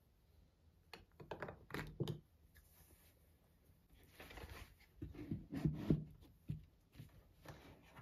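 Light knocks, clicks and rustling as skincare jars are handled in a cardboard storage box and the box's lid is picked up, a scattered run of short handling sounds with the busiest cluster about five to six seconds in.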